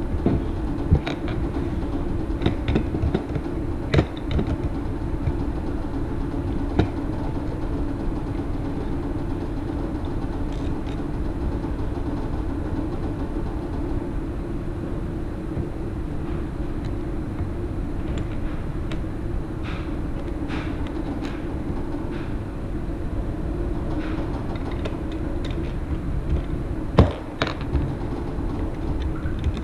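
Plastic Lego bricks clicking and knocking now and then as they are handled, over a steady low hum.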